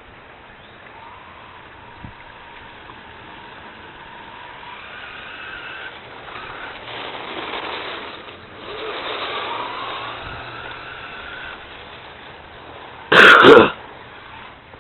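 Small RC car's motor whining as it drives over ice, its pitch rising and falling with the throttle, with a louder rushing stretch in the middle. A sudden loud half-second burst comes near the end.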